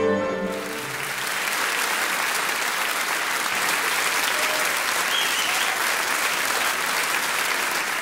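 Music ends about half a second in and a large audience applauds, dense steady clapping throughout.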